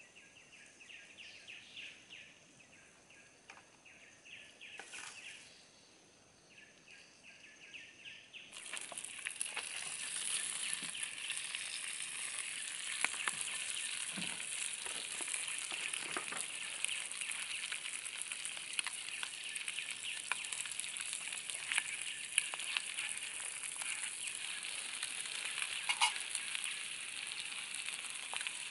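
Food sizzling and crackling in hot oil, starting suddenly about eight seconds in and going on steadily with scattered pops. Before that there is only a faint, steady high buzz.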